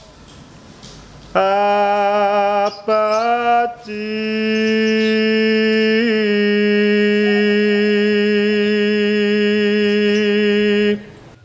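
Male voice singing a Javanese kidung unaccompanied in a slow, drawn-out chant. After about a second and a half of quiet it enters with a short wavering run, then holds one long steady note for about seven seconds that breaks off near the end.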